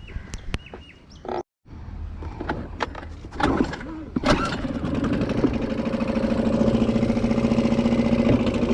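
A few sharp clicks and knocks, then about three and a half seconds in a small boat's outboard motor starts up and settles into a steady run.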